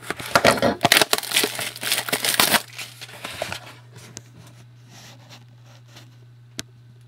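Plastic packaging wrap crackling and tearing as a box of trading cards is torn open, dense for about three and a half seconds. A few faint ticks follow, then one sharp click near the end.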